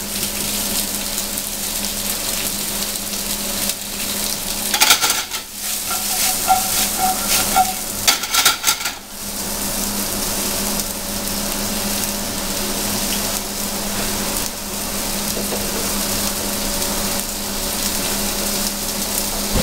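Sliced mushrooms sizzling in olive oil in a hot frying pan, a steady hiss, as they start to give up their moisture. A spell of knocking and scraping about five to nine seconds in is the loudest part.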